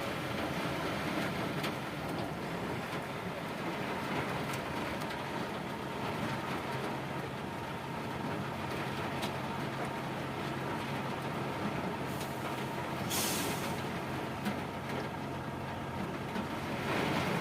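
Heavy rain and strong wind making a steady rushing noise over a low, steady hum, with a brief sharp hiss about thirteen seconds in.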